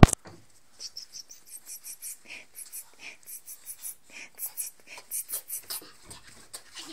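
Paintbrush brushing and dabbing on a painted surface: a run of short, quick scratchy strokes, a few a second, after a sharp knock at the start.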